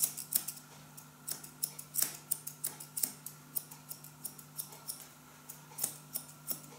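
Grooming scissors snipping through a poodle's curly coat, trimming the hair of its topknot in short cuts at an uneven pace, about three snips a second.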